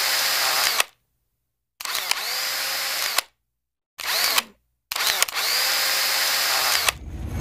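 A small electric motor whirring in four bursts with short gaps between them. Each burst spins up, holds a steady whine and winds down. The third burst is short.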